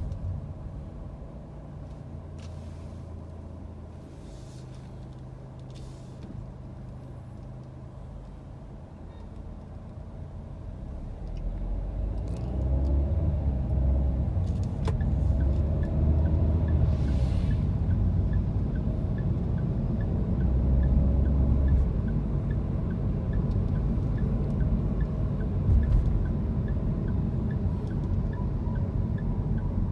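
Car running on the road, heard from inside the cabin: a low engine and tyre rumble that grows louder about twelve seconds in as the car picks up speed. A faint regular ticking runs through the second half.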